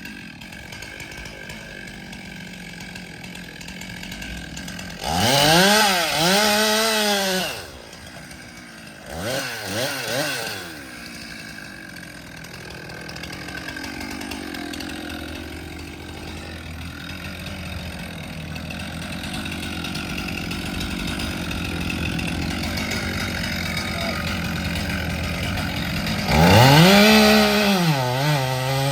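Chainsaw idling and revved up to high speed in short bursts, three times: about five seconds in, around ten seconds, and near the end. A lower engine sound runs steadily underneath.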